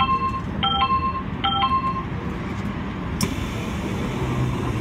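Electronic door chime of a stopped commuter train, a two-tone chime sounding three times about 0.8 s apart and ending about two seconds in. A sharp click comes just after three seconds, and a low steady hum starts about four seconds in.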